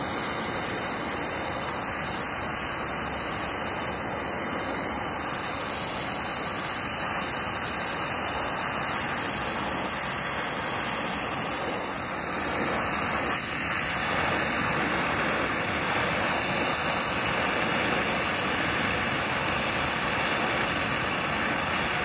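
Brazing torch flame hissing steadily as it heats a copper refrigerant-line joint. It gets a little louder about halfway through.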